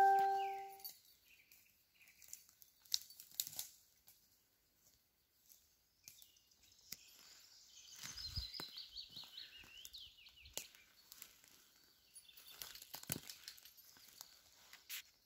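A ringing tone fades out in the first second, then footsteps crackle through dry pine needles, grass and twigs on the forest floor, with birds chirping, a quick run of high notes about eight seconds in.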